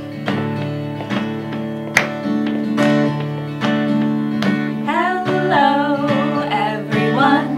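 Acoustic guitar strummed in a steady rhythm, opening a group hello song. A singing voice comes in about five seconds in.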